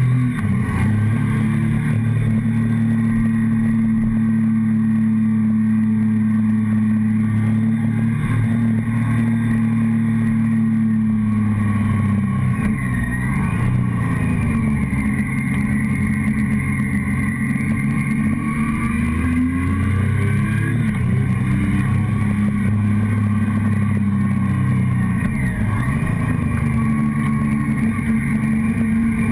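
Motorcycle engine and exhaust heard from the fuel tank while riding, holding steady revs for about the first ten seconds. After that the pitch drops and climbs again several times as the rider eases off and accelerates through gear changes.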